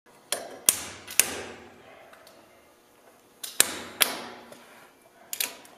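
Hammer blows on steel: a hammer striking locking pliers clamped on a cotter pin in a tank's track tension adjuster, to work the pin out. There are about eight sharp metallic knocks in three clusters, each ringing briefly.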